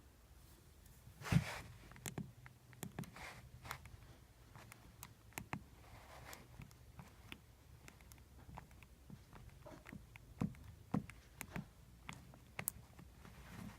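Faint handling noise of a mobile phone being operated: scattered small clicks and taps of its keys, a soft thump about a second in, and a few brief rustles.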